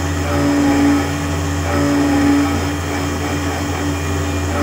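Homemade mini CNC router milling delrin with an eighth-inch four-flute carbide end mill: the spindle motor runs steadily under cutting load, a constant hum with a higher tone that swells and fades every second or so as the tool moves through the cut.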